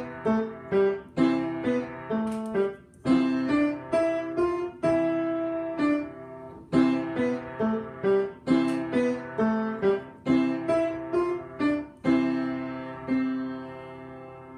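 A keyboard instrument played with both hands: a simple melody in C major in short phrases of evenly spaced notes over a sustained low accompaniment, ending on a held chord about twelve seconds in that slowly fades.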